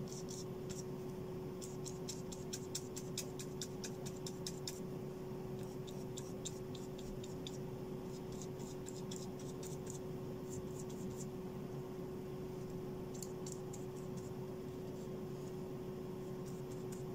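Paintbrush dabbing and scrubbing thick gouache onto paper: runs of short scratchy strokes with pauses between them, over a steady low hum.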